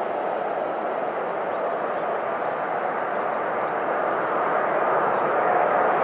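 Airplane engine noise in flight: a steady rush with a faint whine in it, slowly growing louder.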